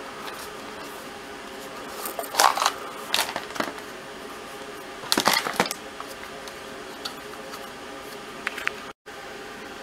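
A hard plastic pistol holster being handled and worked at: a few short bursts of clacking and scraping as the hands try to open it, over a steady background hum.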